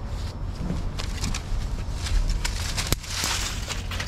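Dry dead stems and fallen leaves crackling and rustling as they are pushed through, with scattered sharp snaps and clicks and a burst of rustling about three seconds in, over a low steady rumble.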